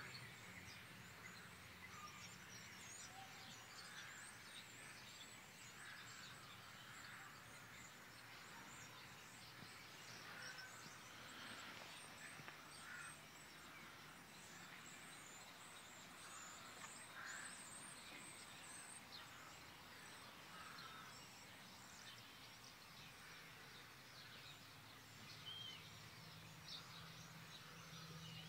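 Near silence: faint outdoor ambience with scattered distant bird chirps.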